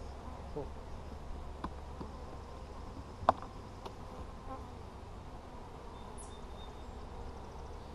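Honey bees buzzing steadily around an opened hive. A single sharp click sounds about three seconds in while the plastic hive lid is worked loose.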